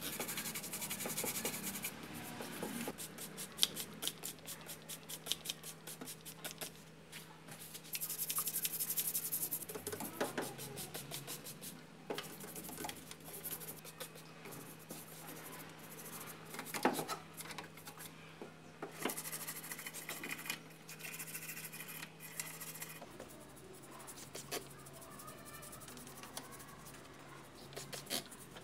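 A toothbrush scrubbing soapy engine-bay parts in rapid back-and-forth strokes that come in bursts, with a few sharp clicks between them.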